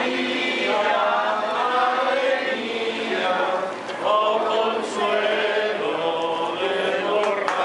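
A crowd of people singing a hymn together, many voices on one melody with long held notes.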